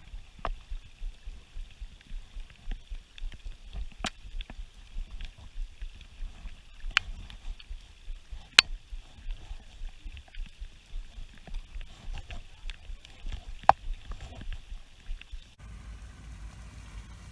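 Gusty wind rumbling on the microphone, broken by a few sharp clicks.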